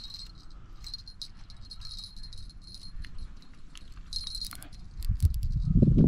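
Fishing reel's drag clicking in short runs as a hooked pangasius pulls line. A louder low rumble of rod handling comes about five seconds in.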